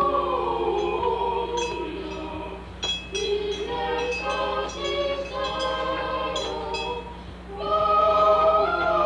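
A Christmas carol sung by a choir, with long held notes, playing from a cassette on a portable stereo, over a steady low hum. There is a short click about three seconds in.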